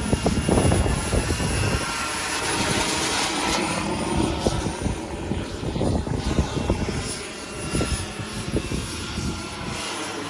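Turbine-powered model Hughes 500 helicopter (JetCat PHT 3 turboshaft) flying: a steady high turbine whine over a continuous fluttering rush from the rotor.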